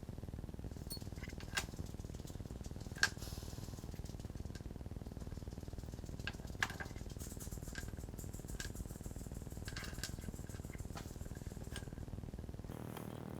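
Scattered light clicks and taps of small parts being handled during reassembly of a cast iron stove door, the loudest three about 1.5, 3 and 6.5 seconds in, over a steady low hum.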